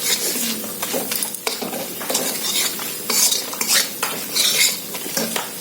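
A utensil stirring and scraping around a kadai of frying masala, in irregular strokes, over a steady sizzle as the freshly added spice powders cook in oil.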